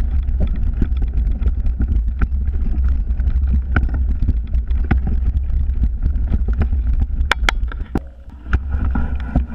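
Mountain bike descending a rough forest trail: a steady low wind rumble on the bike-mounted camera's microphone, with frequent rattles and knocks from the bike over rocks and roots. It eases briefly about eight seconds in, then picks up again.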